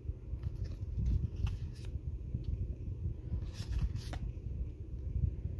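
Yu-Gi-Oh! trading cards being flipped through by hand, sliding and flicking against each other in scattered soft clicks over a low rumble of hand-handling noise, with a cluster of sharper flicks about four seconds in.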